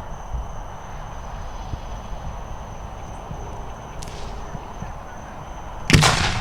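A single sharp firework bang near the end, the loudest thing here, with a ringing echo after it. Before it there is low, steady outdoor background noise and a thin steady high-pitched tone.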